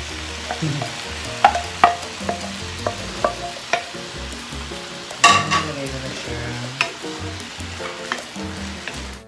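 Vegetables frying and sizzling in a wok while a wooden spatula stirs them, with a string of sharp knocks and scrapes of the spatula against the pan; the loudest clatter comes about five seconds in.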